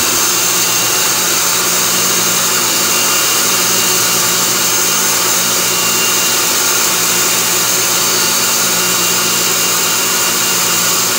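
Themac toolpost grinder's motor and wheel spinning at speed, a steady high whine, with the lathe turning the three-jaw chuck. The wheel is not yet in contact with the chuck jaws, so there is no grinding or sparking sound.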